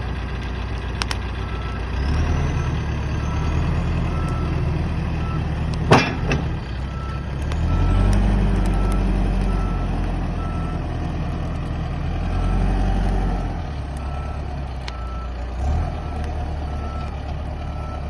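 John Deere 310SJ backhoe loader's diesel engine running and revving up in several surges as it reverses, its reversing alarm beeping steadily. A sharp clank about six seconds in.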